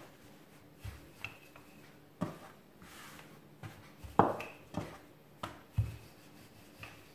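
Wooden rolling pin rolling out dough on a floured countertop: soft rubbing with a scattering of light knocks, the loudest about four seconds in.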